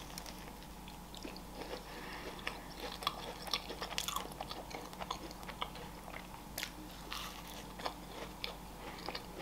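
Close-up biting and chewing of a macaron, its crisp shell crunching in soft, irregular crackles.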